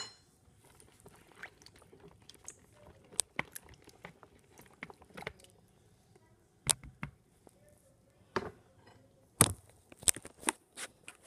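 A spoon clinking and knocking against a bowl as chopped raw carrots are stirred: irregular sharp clicks, with the loudest knocks in the second half.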